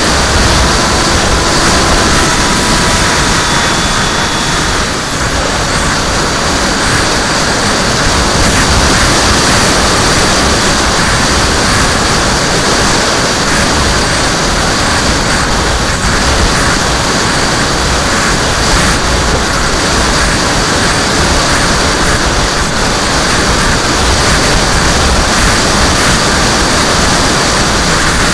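Steady rush of wind over the onboard camera of a HobbyKing Skyfun flying wing in flight, mixed with the buzz of its electric motor and propeller, with a few faint thin tones in the first few seconds.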